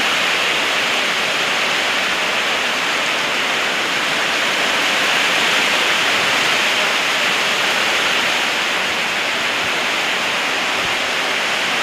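Heavy thunderstorm rain and strong wind, a steady rushing noise with no breaks.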